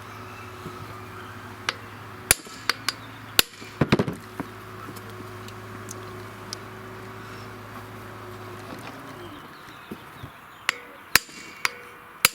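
Sharp metallic hammer blows on a hand impact driver with a JIS Phillips bit, struck against seized carburetor plenum screws: a quick run of about six strikes a few seconds in, then four more near the end. The screws are not yet breaking loose. A low steady hum runs underneath and stops about three-quarters of the way through.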